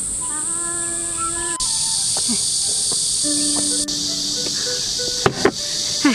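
A steady, high-pitched drone of a summer insect chorus, swelling and then easing back in the middle. Light background music plays under it, and a couple of sharp knocks come near the end as a basket is set down on a wooden table.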